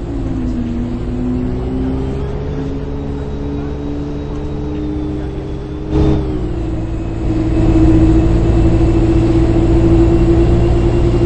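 A bus heard from inside as it drives, with a steady low hum and a drivetrain whine that dips, climbs and then falls in pitch. There is a sharp knock about six seconds in, and after it the running gets louder, with one steady whine.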